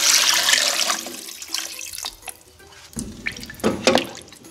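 Water being poured into a pot of browned pork pieces and seasoning base: a rushing splash that fades out about a second in. After it come a few short knocks, like a wooden spoon moving the pieces in the liquid.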